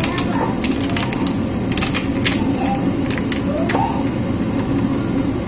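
Scattered sharp clicks and clatter of kitchen items being handled over a steady low rumble.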